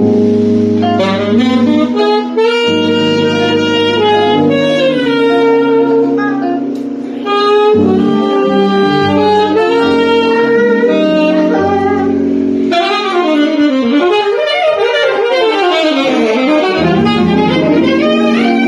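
Live band playing a slow R&B instrumental passage. A lead melody line slides and bends in pitch over sustained bass notes that change every second or two.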